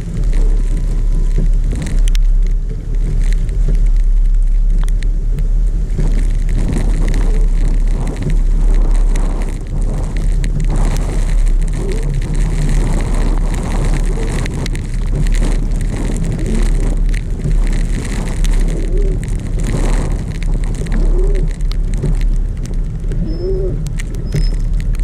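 Car driving on snowy roads: a steady low rumble of engine and tyre noise. A few faint short squeaks come near the end.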